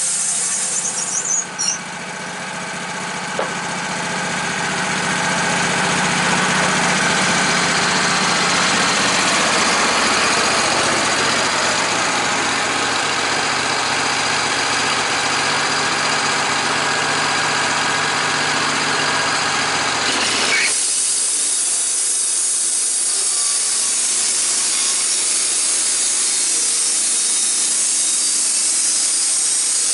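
A machine with a motor or engine running under a loud, steady hiss. About two-thirds of the way through the low hum cuts out suddenly, and the hiss goes on alone.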